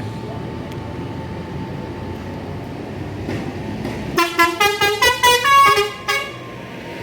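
Steady low rumble of an idling bus, then about four seconds in a bus's multi-tone 'telolet' horn plays a quick two-second tune of about eight short notes at different pitches.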